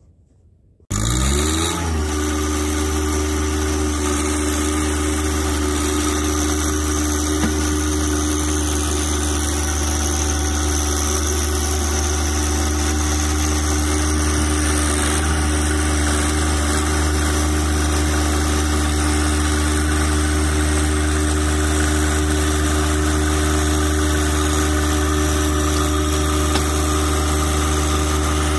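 John Deere compact tractor's diesel engine, starting abruptly about a second in and rising in pitch as it revs up, then running steadily under load as its front loader pushes a heavy barrel-floated dock.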